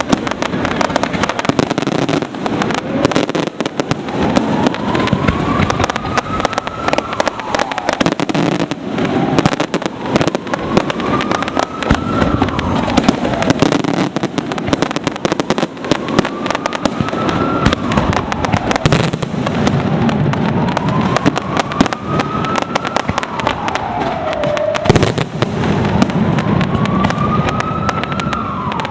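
Fireworks display in full barrage: a dense, continuous stream of bangs and crackling with no let-up. Underneath, a tone rises slowly and drops back about every five seconds.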